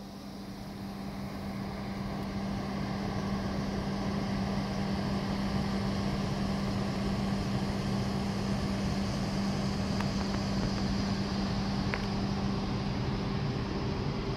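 Steady low machinery hum with a strong droning tone, from the power plant's rooftop ventilation and machinery, mixed with open-air noise. It swells up over the first few seconds and then holds steady.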